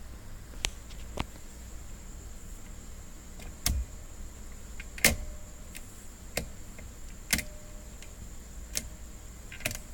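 Irregular clicks and knocks from the steering wheel and column of a 1986 Porsche 944 as the wheel is turned back and forth, over a steady low hum. None of them is the snap of the turn signal cancelling: the cancelling mechanism does not return the stalk.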